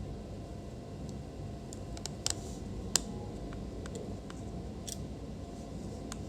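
Handling noise: a few short, sharp clicks and taps, the loudest about three seconds in, over a steady low hum.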